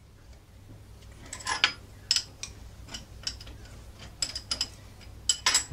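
Steel spanner clicking and clinking on the nuts of a lathe's top slide as it is unbolted: a string of sharp metallic clicks in irregular clusters, with the loudest ones near the end.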